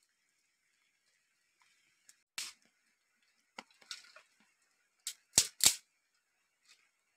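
Dry sticks and firewood being handled and snapped: a few sharp cracks and clatters, the loudest two in quick succession a little past five seconds in.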